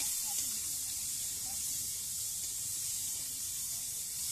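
Raw pork pieces frying in hot oil in an iron kadai: a loud, steady sizzle that starts sharply as the meat goes in.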